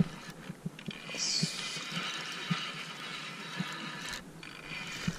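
Spinning reel on a feeder rod being cranked to wind in line, with soft, irregular knocks from handling the rod and reel. A short high chirp comes about a second in.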